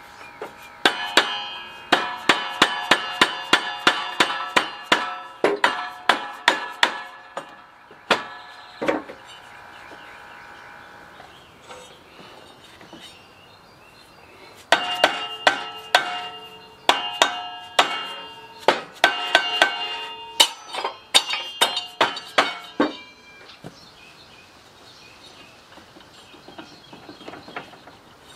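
Dead-blow hammer striking a riding mower engine's crankshaft pulley that is rusted onto the shaft. Quick blows, about three a second, make the metal ring. One run of blows is followed by a pause of several seconds, then a second run.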